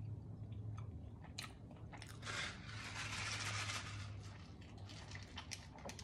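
Close-up chewing and crunching of food in the mouth: a few small clicks, then a dense crunchy crackle for a couple of seconds, then more clicks as the chewing slows, over a low steady hum.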